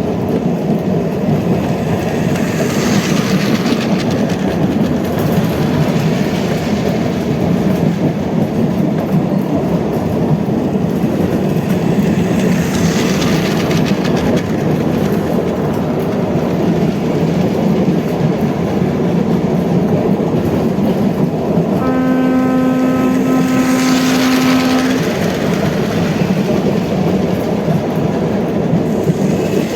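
Train sound effect: a steady rolling rumble with clickety-clack from the wheels, swelling now and then, and a single horn blast held for about three seconds a little past the middle.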